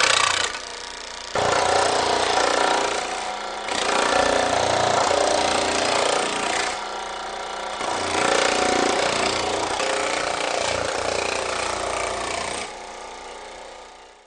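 Baileigh PH-19 power hammer running and rapidly hammering sheet metal with a thumbnail shrinking die. The noise swells and dips as the work goes on, then fades away near the end.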